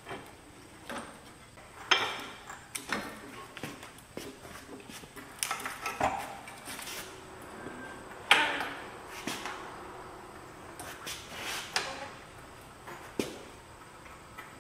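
Irregular metal clunks, knocks and creaks as a compact tractor is split, its engine on a rolling floor jack being pulled away from the transmission bell housing. The loudest knock comes about eight seconds in.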